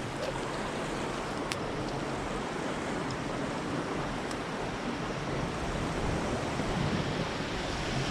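Steady wash of ocean surf, with wind.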